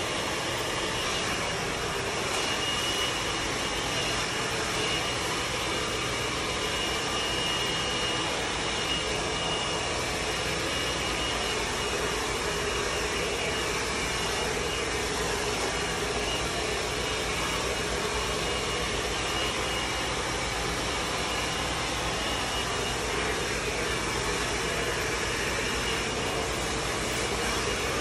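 Handheld hair dryer running steadily at close range: a constant rush of blown air with a steady high-pitched whine from its motor.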